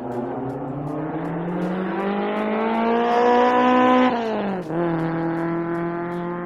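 A motor's steady whine that climbs slowly in pitch for about four seconds, then drops sharply and holds at a lower, steady pitch, like something driving or flying past.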